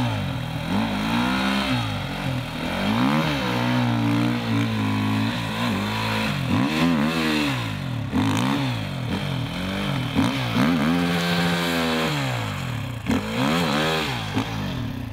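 Dirt bike engine revved up and down over and over, roughly every one to two seconds, as the rear wheel spins in boggy ground while the bike is being pushed out.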